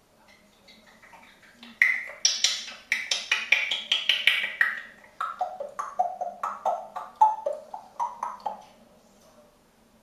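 African grey parrot making a rapid run of short, clipped clicks and calls, about four a second, higher-pitched at first and dropping lower about halfway through.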